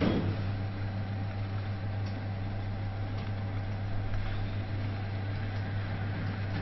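Built-in thermal chart printer of an RMS Vesta 301i electrocardiograph running steadily as it prints an ECG trace and feeds the paper out, with a click right at the start.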